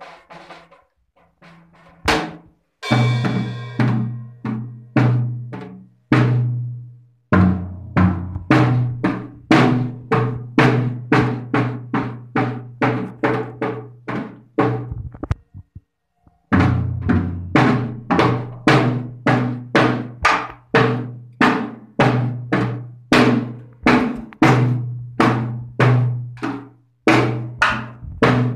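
A beginner child hitting an acoustic drum kit, mostly drum strokes with a cymbal crash about three seconds in. Soft taps at first, then loud, somewhat uneven hits at about two or three a second, stopping for a moment about halfway and then starting again.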